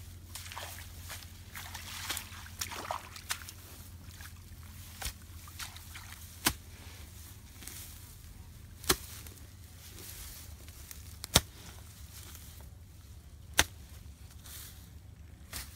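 Hands plucking and rubbing scorched feathers off a singed bird carcass in a wicker basket: soft, scattered scraping and rustling, with four sharp clicks about two and a half seconds apart over a low steady hum.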